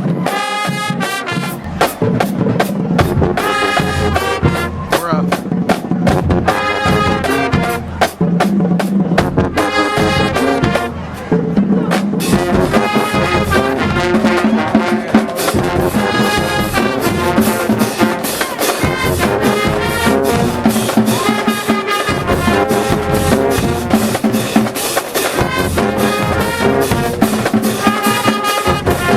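A high school marching band playing in the stands, with trumpets and trombones carrying the tune over marching drums.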